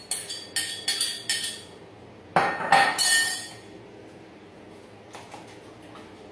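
A utensil clinking against a cooking pot while meat and marinade are mixed in it: quick ringing strikes about three a second for the first second and a half, a louder clatter about two and a half seconds in, then only faint knocks.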